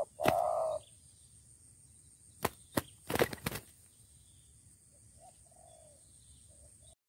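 Spotted doves fighting: a short call just after the start, then a quick run of sharp wing slaps about two and a half to three and a half seconds in, and faint dove calls near the end. The sound cuts off just before the end.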